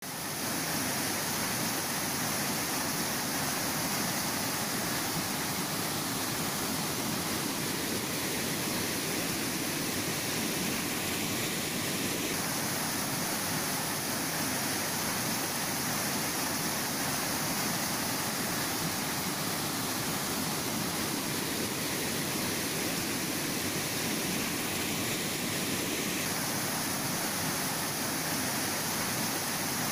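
Steady rushing of a rain-swollen torrent of floodwater pouring down a wooded slope.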